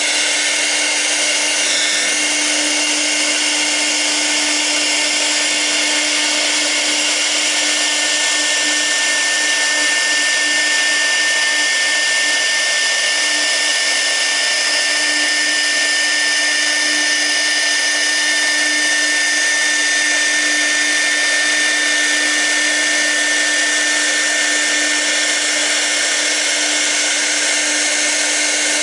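Steady whine of a CNC router's 6 kW air-cooled spindle running while a V-bit carves a toolpath. A higher steady whistle joins about eight seconds in and holds.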